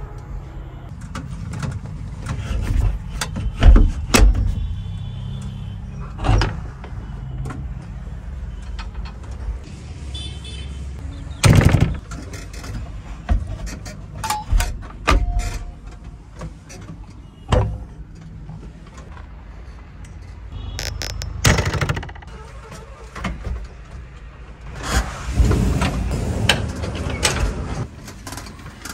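JCB 3DX backhoe loader's diesel engine running at idle, heard from inside the cab, with several loud clunks and knocks from the cab's window latch and fittings being handled.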